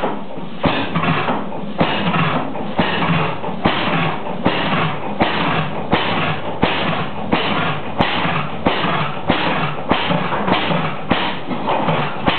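1911 La Crosse Sta-Rite 12 hp hit-and-miss gas engine running on one of its first starts, a steady rhythm of exhaust pulses with a sharp knock about every two-thirds of a second; it is still in need of adjustment.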